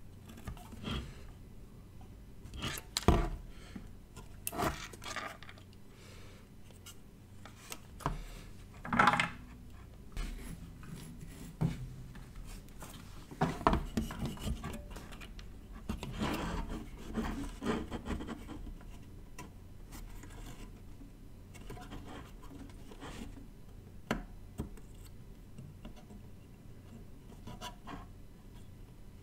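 Irregular handling noises on a wooden workbench: a circuit board, capacitors and desoldering wick being picked up, set down and rubbed. Scrapes and small knocks come and go, with the sharpest knocks about 3 and 9 seconds in, and it grows quieter after the middle.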